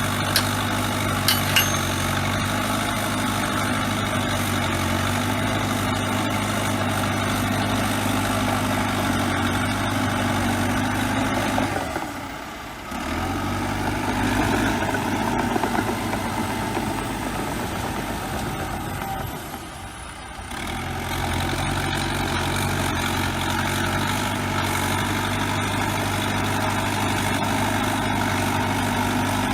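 Bulldozer diesel engine running steadily, with a couple of sharp metallic clicks near the start; the sound drops away briefly twice, about 12 and 20 seconds in.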